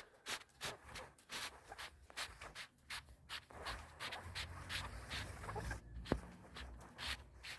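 Hands working parts out of a Duette honeycomb shade: a run of short, irregular rubbing and scraping strokes, with one sharper click about six seconds in.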